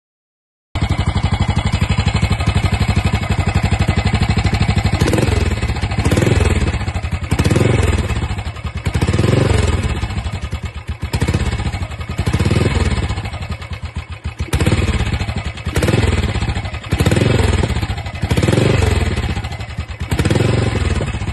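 BSA WD-B40's single-cylinder four-stroke engine running through its new hand-made, sand-bent exhaust and works-style silencer. It idles steadily for a few seconds, then is blipped on the throttle about every second and a half, the revs rising and falling each time.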